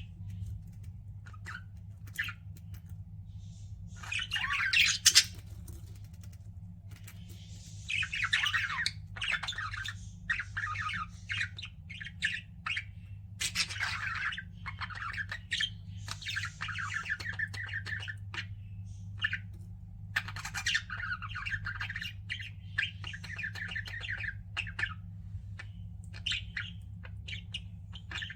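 Pet budgerigars chirping and chattering in bursts of several seconds, with short single chirps in between, over a steady low hum.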